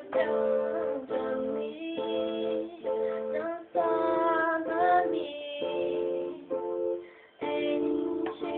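A girl singing a Portuguese-language gospel song over an instrumental backing, her voice rising and falling in sung phrases with short breaks between them.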